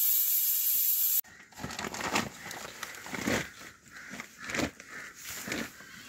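A steady hiss that stops abruptly about a second in, followed by irregular rustling and crinkling from shoes and cloth being handled close to the microphone.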